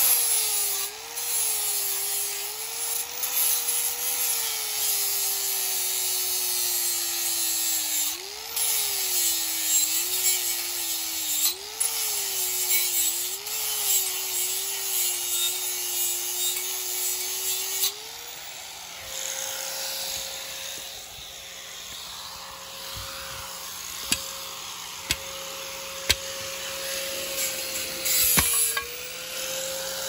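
Handheld electric power tool working on metal. For about eighteen seconds its motor note sags and wavers as it bites under load, then it rises back and runs free more quietly. A couple of sharp clicks come near the end.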